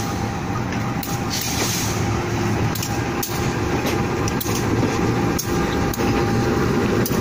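Diesel-electric locomotive passing slowly at close range, its engine running with a steady low drone and hum, with sharp clicks and knocks from the wheels on the track at irregular intervals.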